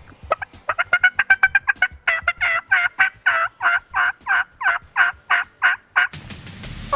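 Turkey yelping: a quick run of short, clipped notes, then a steady series of about a dozen yelps, roughly three a second, stopping about six seconds in.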